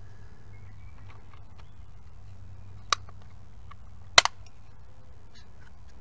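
Plastic parts of a power window switch being snapped back together: a sharp click about three seconds in, then a louder double click a second later as the cover clips onto the switch housing, over a faint low hum.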